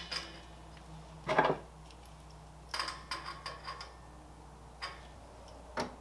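Brass fittings of a gas regulator and a welder's gas hose being handled and fitted, giving scattered small metallic clicks and clinks, a quick cluster of them about three seconds in, and one louder knock about a second and a half in.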